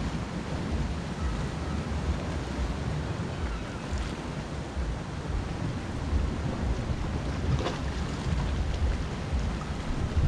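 Sea surf washing steadily against a rocky shoreline, with wind buffeting the microphone as an uneven low rumble.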